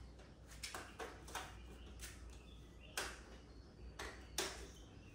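Scattered light knocks and clicks, about seven of them at uneven intervals, the loudest about three seconds in and again near the end, over a low steady hum.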